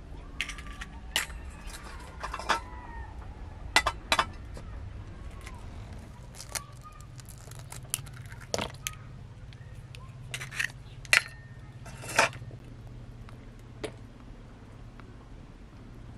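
Hen's eggs tapped and cracked one after another on the rim of a plastic bowl: a series of short, sharp cracks and taps at irregular intervals over a steady low background rumble.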